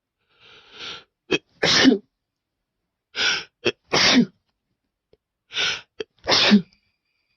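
A person sneezing three times in a row, each sneeze preceded by a sharp, gasping in-breath and a brief catch, in a sneezing fit brought on by snuffing chhinkni sneezing powder.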